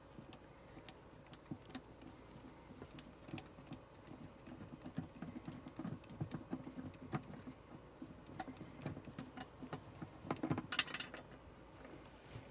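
Light clicks, taps and scrapes of a cushioned toilet seat and its plastic mounting hardware being handled and lined up on an RV toilet bowl, with a brief louder scrape or rustle near the end.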